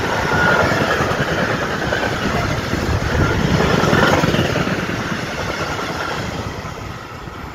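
Freight train's telescopic-hood and sliding-tarpaulin wagons rolling past at close range: a steady rumble and rattle of wheels on the rails, dying away over the last couple of seconds as the end of the train goes by.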